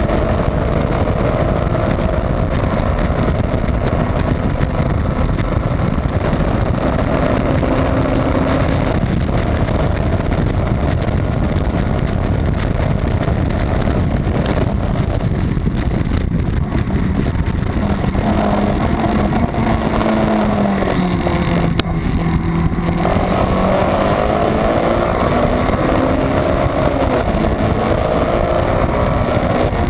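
Honda Civic's B18 non-VTEC four-cylinder engine running hard under racing load, its pitch rising and falling as the car accelerates and slows through gears, with a longer drop about twenty seconds in before it climbs again. Heavy road and wind noise runs under it.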